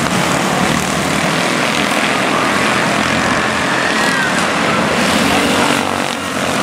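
A pack of quarter midget race cars' small engines buzzing together as they lap the track, with whines rising and falling as cars pass.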